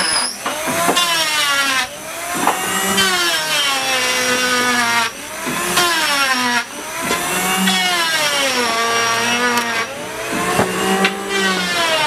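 Electric hand planer running at a high whine, its motor pitch sagging as the blades bite into a pine plank on each pass and climbing back when the cut eases, over and over.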